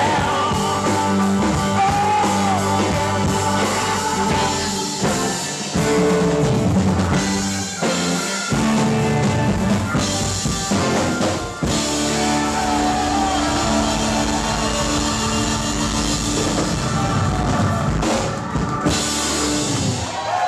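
Live rock band of guitars and drum kit playing the closing bars of a song. It ends on a long held chord over the drums, then stops near the end.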